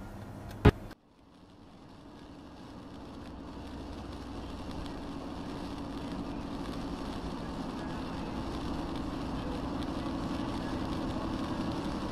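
A single sharp click about a second in. Then steady road noise from a car driving on a rain-soaked highway, heard from inside the cabin and growing slowly louder.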